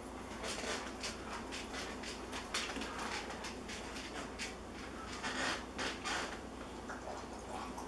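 Metal cutlery scraping and clicking against a plate and a plastic tub while a fruit topping is spooned out and spread on toast: a run of short, irregular scrapes and taps, busiest about five to six seconds in, over a steady low hum.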